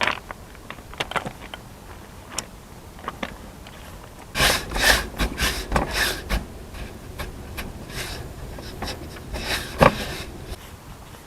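Scraping and knocking of a steel pry bar levered against a Lada Niva's front wheel and suspension. It comes as scattered clicks, then a cluster of scraping and rubbing about four and a half seconds in, and a single sharp knock near the end.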